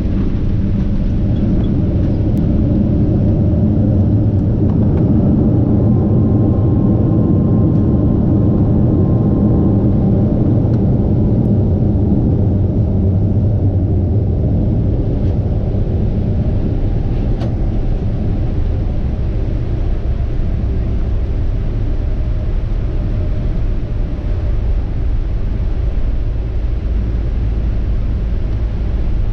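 Boeing 777-200ER's Rolls-Royce Trent 892 engines and airframe rumbling, heard inside the cabin during the landing rollout as the jet slows on the runway. The rumble is loudest in the first half and eases after about the middle.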